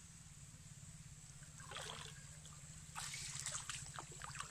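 Faint splashing and trickling of shallow pond water as hands grope through floating weeds for fish, in two short spells, about two seconds in and again about three seconds in.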